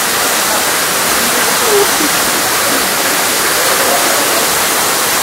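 Tall waterfall plunging down a rock face into a plunge pool: a steady, loud rush of water.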